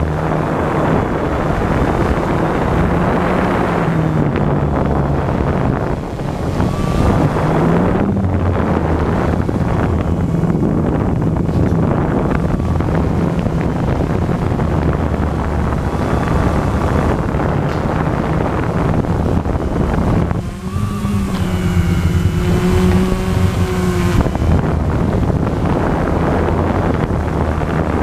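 The RC EYE One Xtreme quadcopter's electric motors and propellers run steadily as a buzzing hum whose pitch drifts up and down as the drone manoeuvres, with wind noise on the onboard camera's microphone.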